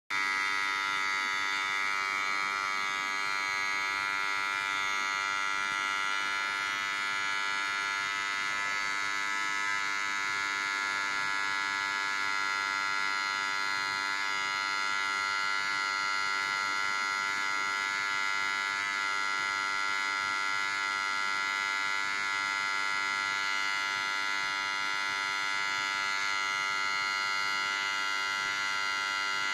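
Steady, unbroken electrical buzz made of many stacked tones, like an electric transformer humming.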